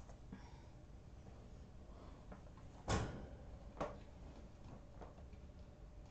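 Two knocks about a second apart, the first the louder, from the wire kennel being bumped and handled as someone reaches in.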